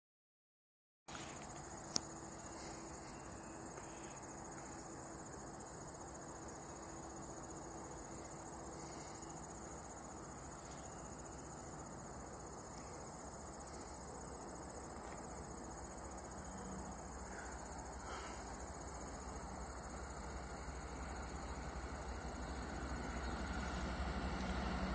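Insects chirring steadily in trackside grass, a continuous high-pitched drone. In the last third a low rumble builds and grows louder as a commuter train approaches on the tracks.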